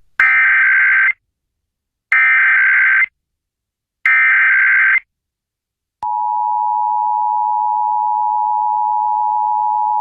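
Emergency Alert System header: three one-second bursts of SAME digital data tones about a second apart, then a steady two-tone EAS attention signal that starts about six seconds in. Together they open an EAS test alert.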